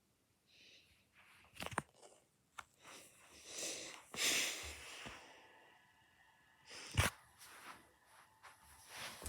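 Fidget toys being handled: a sharp click about two seconds in and another about seven seconds in, with softer rustling and scraping noises between.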